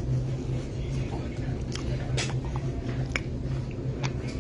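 A steady low hum of room machinery with a handful of sharp light clicks and knocks scattered through it.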